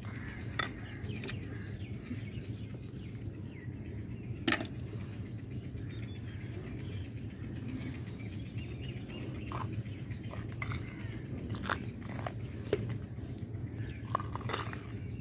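Metal spoon stirring custard powder and water into a paste in a clay bowl, with scattered scraping clicks against the bowl and a louder clink about four seconds in, over a steady low hum.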